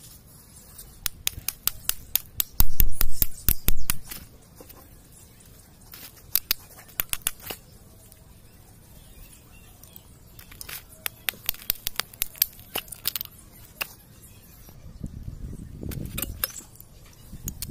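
Sharp metal clicks and taps of hand tools and fingers working on a power tiller's fan tension pulley and its bearing, in several short bursts, with a few dull knocks about three seconds in.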